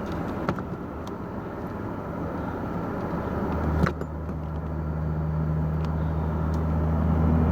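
Car engine and road noise. About three and a half seconds in, a steady low engine note comes up and grows gradually louder, with a single sharp click just before it.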